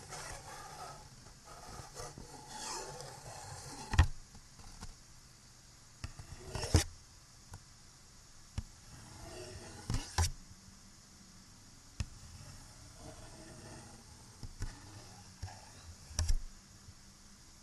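Close-miked scratching and rubbing on small handheld objects over a steady background hiss, busier in the first few seconds. Sharp taps or knocks come every two to four seconds after that, the loudest about four and seven seconds in.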